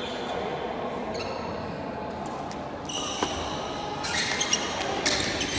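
Badminton shoes squeaking on the court floor and sharp racket strikes on the shuttlecock in a large indoor hall, getting busier in the last second and a half as a rally gets going, over a steady hall background.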